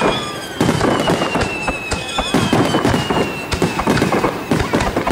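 Aerial fireworks bursting in quick, irregular succession with crackling reports, under a high whistling tone that slowly falls in pitch.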